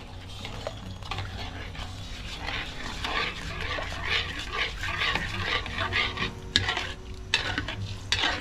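A metal spatula stirring and scraping in a metal wok as a thin palm-sugar and fish-sauce dressing bubbles and sizzles at the boil. A few sharp clicks of the spatula against the wok come near the end.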